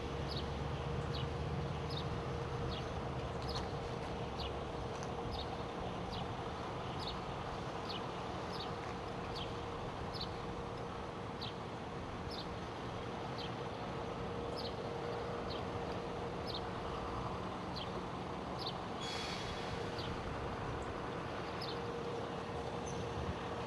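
Utility bucket truck's engine running at idle with a steady mechanical whine while its boom raises the bucket, and a brief hiss late on. Short high chirps, falling in pitch, repeat about once every three-quarters of a second over it.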